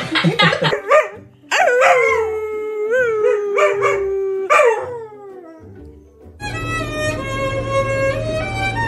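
A dog howling in a long, held call that bends in pitch, with a person howling along. About six and a half seconds in it gives way to violin music.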